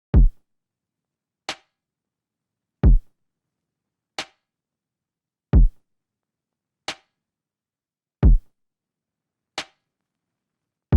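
Drum machine beat on its own: a deep kick drum whose pitch drops, alternating with a short, sharp snare or clap hit about every 1.3 seconds, four of each, with silence between the strokes.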